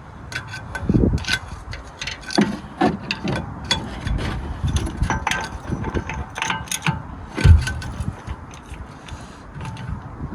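A socket ratchet clicking and metal tools clanking as the 36 mm nut on the driveshaft is tightened into the hub, with a few heavier knocks in between.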